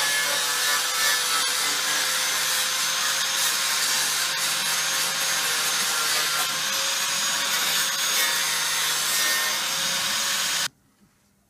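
Angle grinder grinding the metal lip of a car's wheel arch, a steady harsh grinding hiss over the motor's even running tone, cutting off abruptly near the end.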